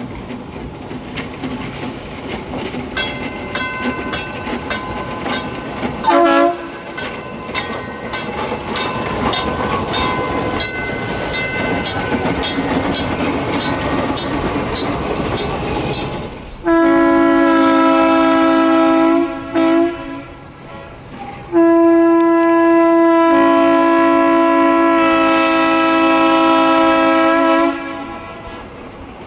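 Electric interurban trolley car running with a rhythmic clicking about twice a second, sounding its horn: a brief toot, then a long blast, a short one, and a final long blast of about six seconds.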